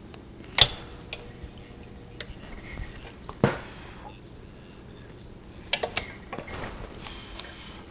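Hand-operated impulse heat sealer sealing a plastic freezer bag: a sharp clack of the sealing arm about half a second in, followed by a faint steady hum, then scattered clicks, knocks and plastic crinkling as the arm is worked and the bag handled, with a second cluster of clicks near six seconds.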